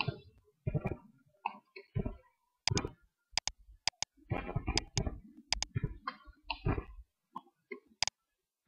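Computer mouse clicking repeatedly, an irregular run of single clicks with some in quick pairs, as faces are picked one by one on a 3D model.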